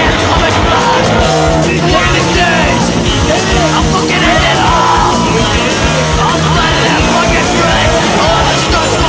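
Loud rock music with a singing voice over a steady beat: the edit's soundtrack.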